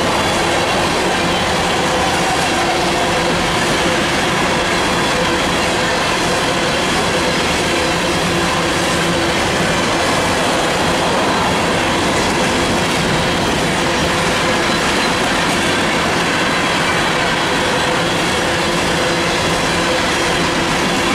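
Empty iron ore cars of a freight train rolling steadily past, steel wheels rumbling and clattering on the rails, with thin steady ringing tones over the rumble.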